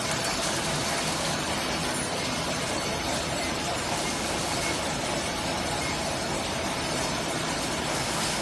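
Automatic plastic-cutlery and napkin packing machine running, a steady, dense mechanical rattle that doesn't let up.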